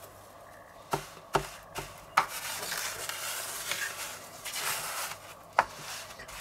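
Hands pressing and rubbing breadcrumbs onto a pork schnitzel in a dish: a rustling, rubbing noise broken by a few sharp taps.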